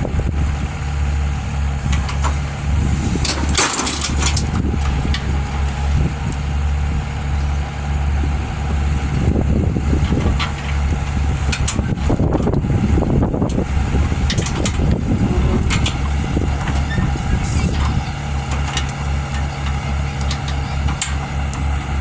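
A heavy engine running steadily with a low throbbing drone, with scattered knocks and clanks over it.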